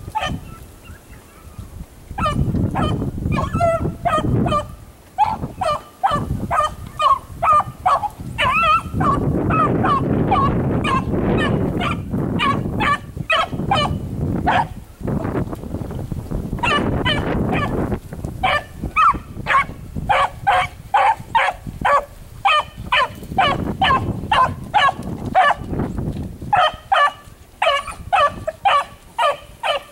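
A single beagle baying on a rabbit's track, giving short calls in quick runs of about two or three a second with brief pauses: the hound trailing the rabbit by scent on its own.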